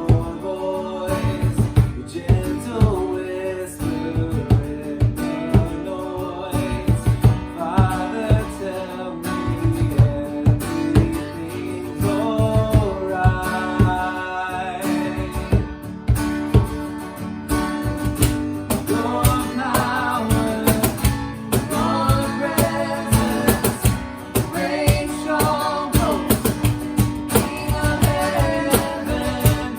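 A live worship band playing: acoustic guitar strumming over a steady drum beat, with voices singing.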